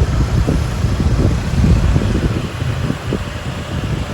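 Low, steady rumble of road traffic going by, with no horn melody sounding.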